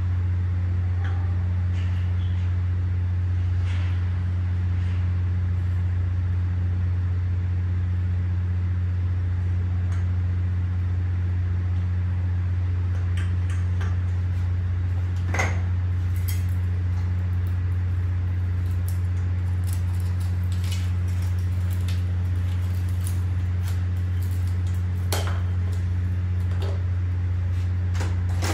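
Steady low hum throughout, with scattered light metallic clicks and taps as a piston and ring compressor are handled on a bare engine block; one sharper click about halfway through.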